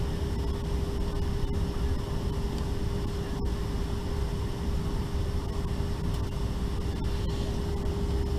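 Cabin noise inside a Boeing 777-300ER before its engines are started: a steady rush of air-conditioning air with a low rumble and one constant hum.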